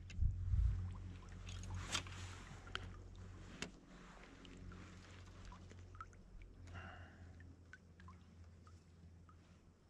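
Light clicks and knocks of fishing gear being handled aboard a plastic kayak, over a low rumble that is strongest in the first second.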